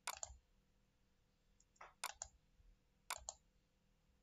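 Computer mouse button clicks: three quick pairs of sharp clicks about a second apart, over near silence.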